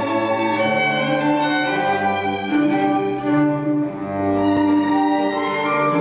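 Orchestral ballet music led by bowed strings, violins and cellos, playing sustained notes.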